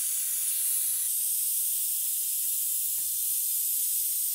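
Air-driven vacuum brake bleeder hissing steadily as compressed air rushes through it, pulling vacuum on the brake caliper's bleed line before the fluid is drawn out. A couple of faint knocks about two and a half and three seconds in.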